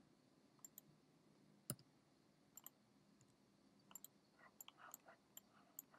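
Faint, scattered computer mouse clicks against near silence, the sharpest one just under two seconds in and a loose run of lighter clicks near the end.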